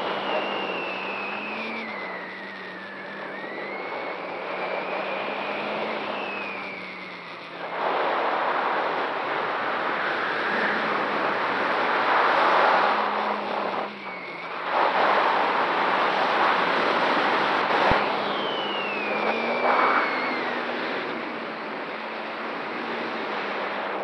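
Large X-Class racing quadcopter in flight, heard from its onboard camera: the brushless motors and 13-inch propellers drone steadily, with a high whistle that glides down and back up with the throttle. Surges of wind rush over the microphone about eight seconds in and again between about fifteen and twenty seconds.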